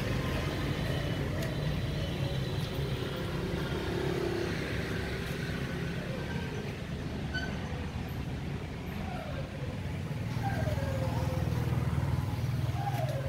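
Street traffic: a steady low engine rumble from vehicles, growing louder for the last few seconds, with a few short sounds that fall in pitch near the end.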